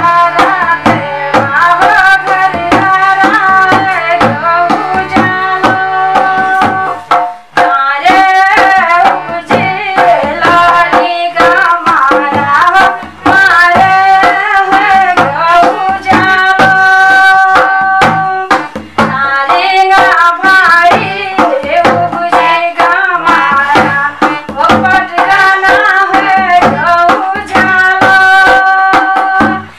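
A woman singing a Pahari song in a wavering, ornamented voice over a steady hand-drum beat, with short breaks between phrases.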